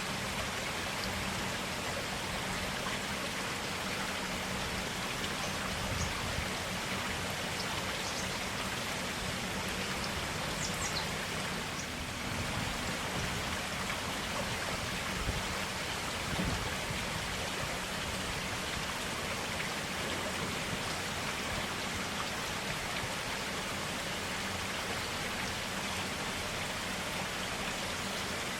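Clear forest stream flowing steadily: an even, continuous rush of running water with a few faint small ticks of droplets in it.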